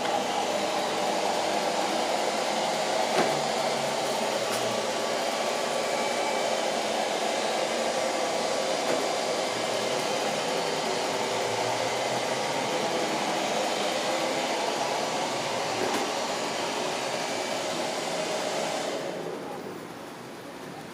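Robot vacuum cleaner running, a steady motor and brush whir that falls away about two seconds before the end.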